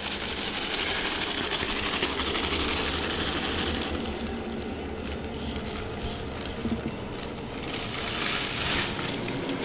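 White powder pouring in a thin stream from a plastic bag onto a gritty concrete floor, a fine rapid ticking that is strongest over the first four seconds.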